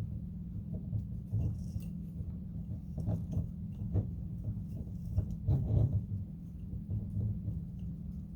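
Soft rustles and light clicks of twine being knotted around the lip of a glass mason jar, over a steady low hum.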